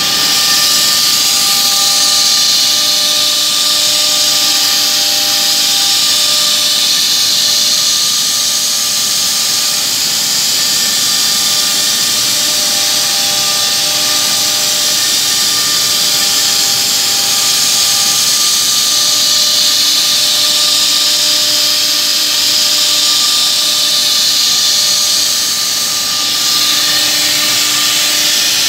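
Holztek CNC-2500A horizontal drilling machine running: a steady loud hiss with several steady whining tones from the drilling head's motor, some of them fading in and out, as the head works along the edge of a clamped wood panel.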